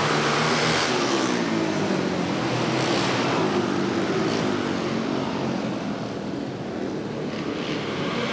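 Several flat-track racing motorcycle engines running hard on a dirt short track, their overlapping pitches rising and falling as riders work the throttle through the turn.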